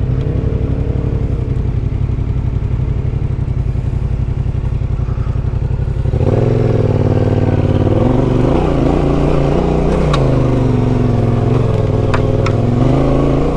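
Adventure motorcycle engine running steadily, then louder about six seconds in as the bike pulls away, its pitch rising and falling with the throttle.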